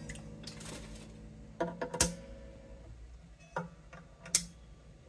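Wire cutters snipping the excess ends of freshly fitted acoustic guitar strings: a few sharp clicks, the loudest about two seconds in, while the strings ring faintly and die away.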